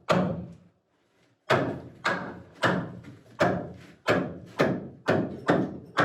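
Wooden window-frame piece being knocked into place with repeated heavy blows. One thud, a pause of about a second, then a steady run of about eight thuds at roughly two a second.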